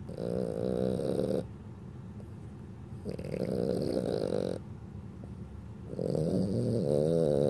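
Sleeping dog snoring: three long snores with short quieter pauses between them.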